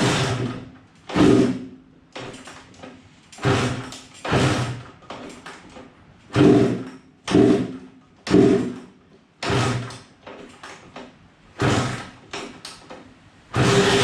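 Suzuki RM125 125cc single-cylinder two-stroke being kicked over again and again, about ten kicks roughly a second apart, each spinning the engine with a short burst of firing that dies away. Near the end it catches and keeps running steadily. It is hard-starting after a rebuild, which the owner puts down to the assembly oil he left on the piston and in the engine.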